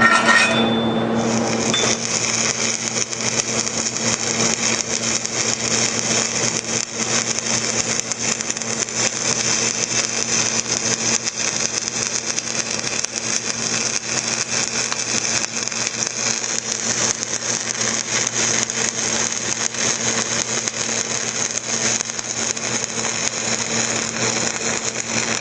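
Shielded metal arc (stick) welding with a Lincoln Excalibur 7018 electrode, running a horizontal stringer bead: a steady, even crackling sizzle of the arc, with a steady low hum beneath it.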